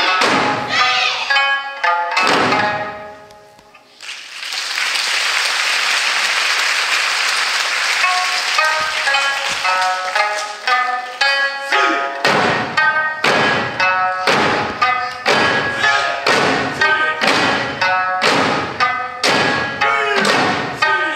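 Okinawan Eisa music: sanshin and singing with large barrel drums and small hand-held drums struck in time. After a brief drop about three seconds in, an even rushing noise fills several seconds, then steady drumbeats return, about three every two seconds, over the sanshin and voice.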